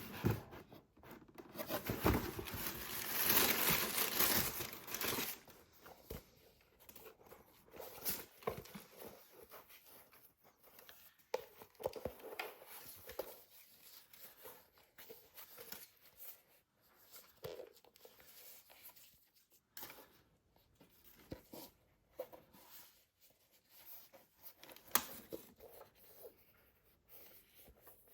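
Paper packaging from a football-boot box being unwrapped: a few seconds of loud rustling and tearing near the start, then scattered quieter rustles, taps and clicks as the contents are handled.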